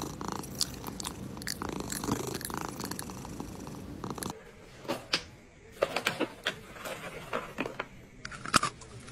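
A cat purring close up. About four seconds in this gives way to a cat biting and chewing at a plastic snack packet, a run of sharp, irregular crinkles and crunches.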